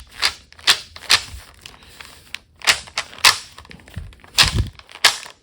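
Irregular sharp clacks and knocks from a bamboo shinai as its leather grip (tsuka) is tugged and twisted to pull it off the slats, about a dozen in all, with two duller thumps a little past four seconds in.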